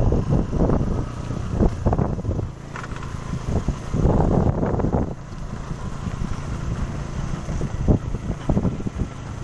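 Engine of a slow-moving motor vehicle running steadily, with wind buffeting the microphone in gusts.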